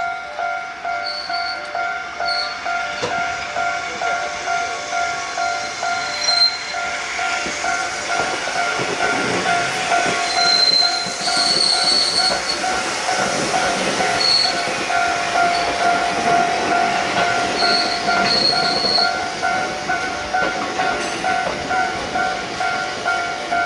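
Japanese level-crossing warning alarm ringing in an even pulse of about two dings a second. Meanwhile a train runs through the crossing with a rumble and brief high wheel squeals.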